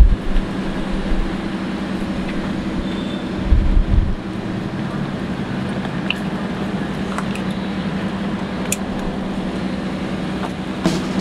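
Steady drone of a running vehicle: a low hum with rumbling noise underneath and a few low thumps about three and a half seconds in.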